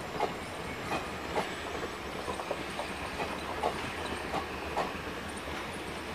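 12876 Neelachal Express passenger coaches rolling slowly on the rails, their wheels clacking over rail joints about twice a second above a steady low rumble.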